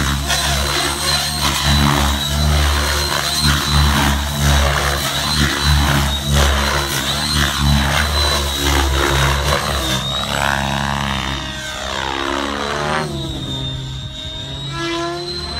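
Align T-REX 700E DFC electric RC helicopter in flight: rotor blades chopping with a steady high whine from the motor and drive, the chop pulsing as the blade pitch changes. From about two-thirds through the sound drops a little and sweeps and shifts as the helicopter moves across the sky.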